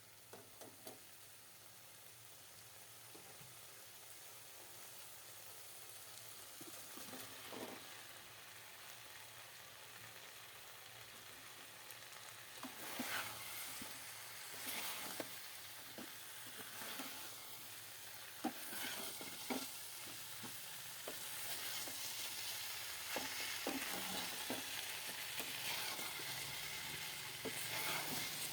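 Chicken masala, braised without added water, sizzling in a karai as fried cauliflower and potatoes are added and stirred in, the spatula scraping and knocking against the pan. The sizzle slowly grows louder, and the knocks come more often from about halfway through.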